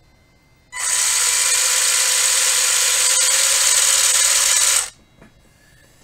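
Electric RC car's motor and drivetrain running at full throttle: a loud, steady whine with gear noise that starts abruptly about a second in and cuts off after about four seconds.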